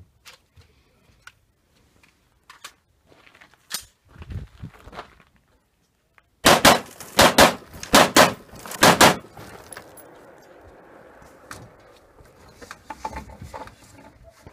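Gunshots fired in quick pairs, about eight shots in under three seconds, starting about halfway through.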